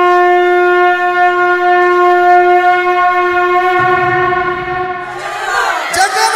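A single steady horn-like wind note with strong overtones, held for about five seconds, then breaking into wavering, gliding pitches as music begins.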